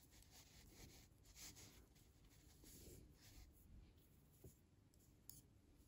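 Very faint scratchy rustle of metal knitting needles and yarn as stitches are worked, close to near silence. A light click comes near the end.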